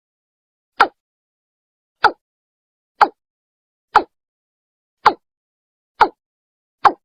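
Watercock (Gallicrex cinerea) calling: a steady series of short notes about one a second, seven in all.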